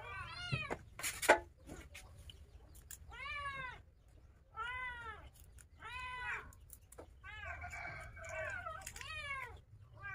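A cat meowing over and over, about six calls, each rising and then falling in pitch. A sharp knock about a second in is the loudest sound.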